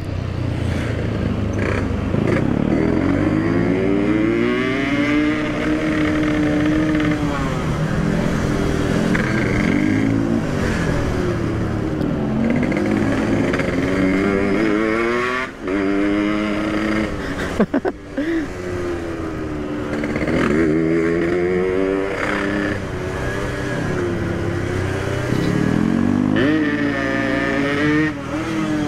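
Yamaha RX-King two-stroke single-cylinder motorcycle ridden at full throttle. The engine note climbs in pitch again and again, then drops as it shifts up through the gears. A few sharp knocks come about eighteen seconds in.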